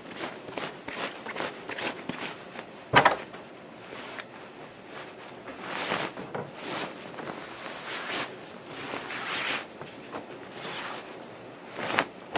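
Fabric rustling and swishing in irregular bursts as a large sewn cloth bag is handled and turned right side out. There is a sharp knock about three seconds in and a smaller one near the end.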